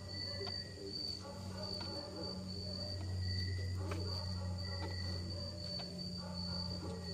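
Crickets trilling steadily with a high, even tone, over a low steady hum, with faint distant voices and a few faint clicks.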